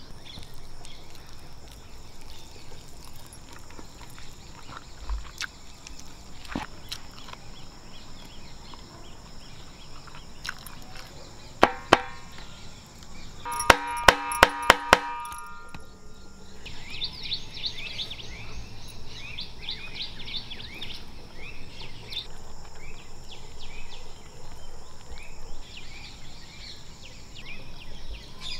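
Outdoor rural ambience: a steady high insect drone with birds chirping, the chirps thick over the second half. Just before the midpoint there is a quick run of about six sharp, ringing strikes.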